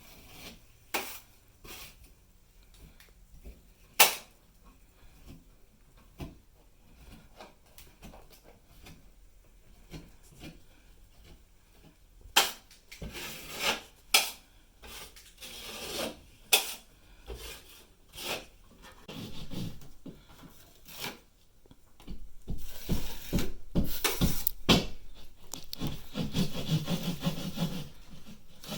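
Scattered knocks and taps, then, from about two-thirds of the way in, a louder, sustained rough sawing and scraping as a tool cuts into the ceiling or wall during the fan installation.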